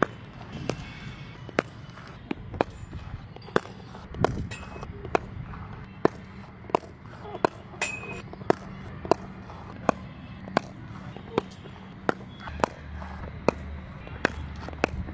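Cricket balls struck off willow bats in net practice: sharp wooden cracks, one every half second to second, some twenty in all.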